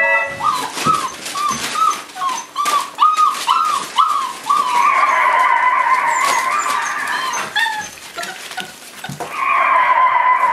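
Five-week-old Boerboel puppies whining: a run of short rising-and-falling whimpers in the first four seconds, then one long drawn-out whine, and another starting near the end. Small clicks and smacks of puppies eating and lapping at their food and water bowls run underneath.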